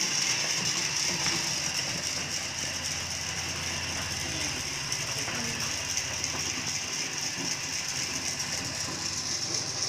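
Homemade 12-volt popcorn machine running: its DC motor turns the stirring arm in the kettle with a steady mechanical gear rattle. Over it sits a steady high hiss from the lit gas burner under the kettle.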